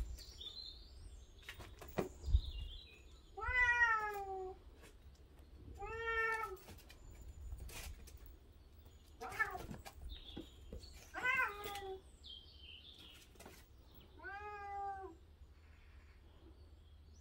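Bengal cat meowing five times, drawn-out calls each well under a second long and a few seconds apart, with a couple of sharp knocks about two seconds in.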